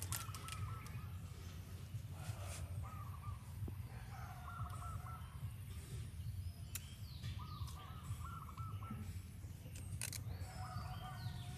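Short wavering animal calls repeat about five times, every one to three seconds, over a steady low rumble, with a couple of sharp clicks.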